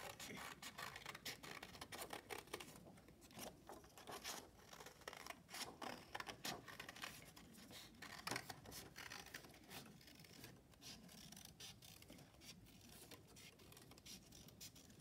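Small scissors cutting a circle out of thin card: a long run of faint, irregular snips, with the card rustling as it is turned.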